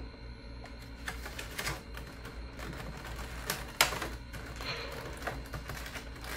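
Hands working open a clear plastic packaging case: irregular plastic clicks and crackles, with one sharp snap a little under four seconds in.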